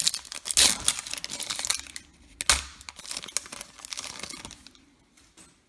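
Foil trading-card pack wrapper crinkling as it is handled and torn open, with one sharper rip about two and a half seconds in, then lighter handling that dies away.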